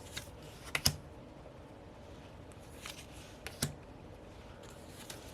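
A handful of sharp taps and clicks from stiff cards and packaging being handled and set down. The loudest come about a second in and again about three and a half seconds in.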